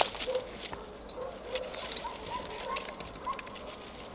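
Birds calling outdoors: a string of short low notes in the first second or so, then a few short, slightly rising higher notes in the second half, over scattered clicks and rustles of rope handling and feet on stony ground. A sharp knock sounds at the very start.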